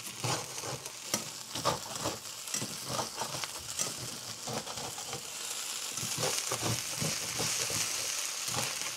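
Potatoes frying and sizzling in a stainless steel skillet while a metal turner scrapes and flips them, clicking against the pan. The sizzle grows louder in the second half.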